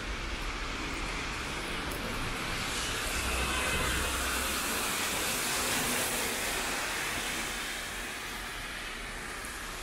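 Rainy city street ambience: a steady hiss of rain and tyres on the wet road, swelling for a few seconds in the middle as a vehicle passes.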